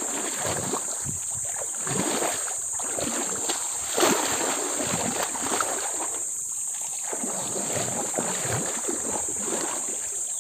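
Shallow pool water splashing and sloshing irregularly as people wade through it and sweep a hand net, with one sharper splash about four seconds in.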